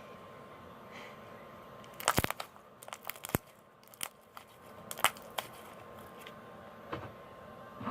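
Homemade slime being squeezed and worked by hand, giving off sharp popping and crackling clicks in quick clusters, starting about two seconds in and returning a few times near the end.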